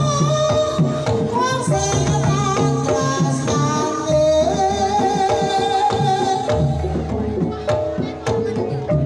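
Live Banyumasan gamelan playing a tayub gending: a sinden sings long held, gliding notes over a steady pattern of kendang drum strokes and the rest of the ensemble.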